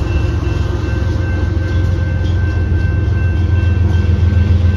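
Deep, steady rumble of a BNSF rock train's rear distributed-power diesel locomotives moving away past the grade crossing, growing a little louder near the end, with the crossing's electronic bell ringing as a thin steady tone over it.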